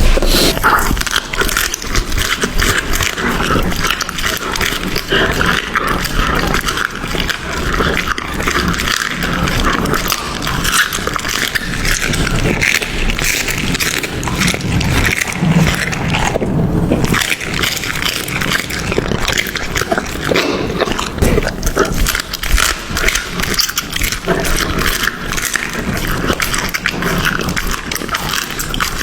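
A dog chewing and eating food close to the microphone: a dense, steady run of wet smacks and crunchy clicks, with a brief lull about halfway through.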